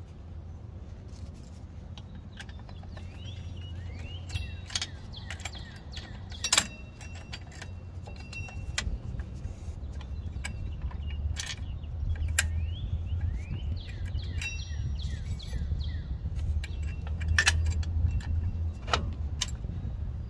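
Drum-brake springs and shoes of a 1995 Ford F-150 clinking and jangling as they are worked into place by hand: many sharp metallic clicks, some ringing briefly, louder in the second half. A steady low rumble runs underneath.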